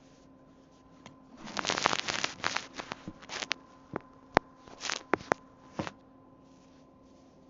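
Quick run of sharp clicks, taps and short scraping, rustling noises, as of small objects being handled, over a faint steady hum.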